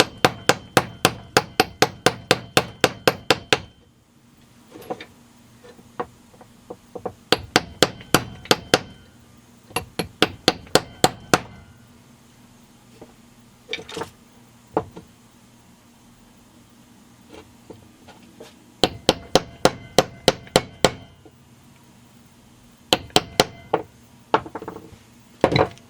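Quick light hammer taps, about five a second, in several runs with pauses between and a few single taps, driving an aftermarket crankshaft seal into a Stihl MS 200T crankcase bore until it seats.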